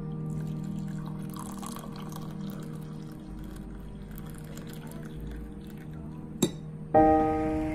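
Brewed coffee poured from a Kalita glass server into a ceramic mug: a steady stream of liquid splashing as the mug fills, over soft background piano music. A sharp click comes about six and a half seconds in, and a loud piano note is struck near the end.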